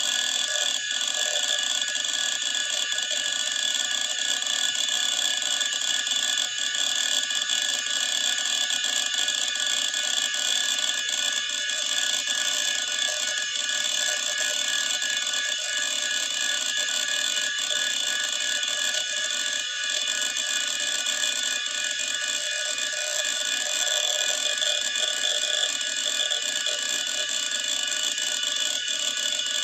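Old PC hard disk drive running, a steady high-pitched whine of the spinning platters with occasional faint clicks of the heads.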